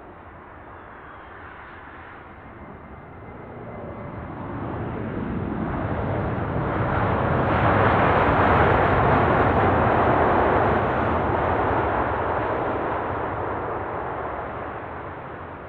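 Boeing 737 MAX 9 jet airliner, with CFM LEAP-1B turbofans, passing close while landing. The engine noise swells to a peak about halfway through, then fades away, with a faint high whine that drops in pitch as it goes by.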